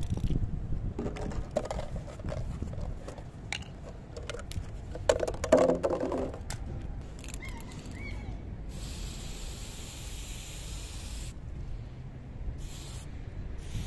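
Aerosol spray-paint can spraying: one long hiss of about two and a half seconds, then two short bursts near the end. Before it come clicks and rattles as the can is handled and a nozzle cap is fitted.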